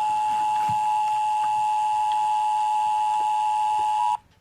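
Emergency Alert System attention signal: the steady two-tone alarm (853 and 960 Hz together) that announces an emergency broadcast, here a shelter-in-place warning. It holds steady and cuts off suddenly near the end.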